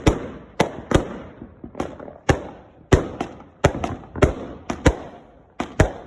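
Consumer firework cakes going off: about a dozen sharp bangs at irregular intervals, roughly two a second, each with a short echoing tail.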